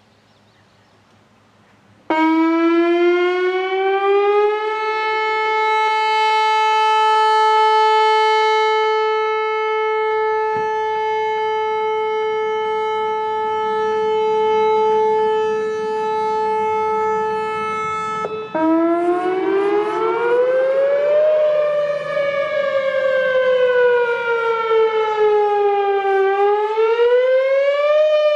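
Outdoor tornado warning siren starting up about two seconds in, rising in pitch and then holding one steady tone. After a sudden break near the end of that tone, it starts again low and sweeps slowly up, down and up again in a wail.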